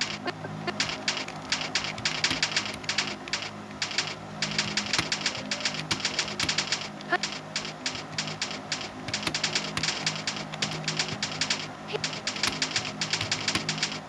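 Fast typing on a keyboard: quick runs of key clicks broken by a few short pauses.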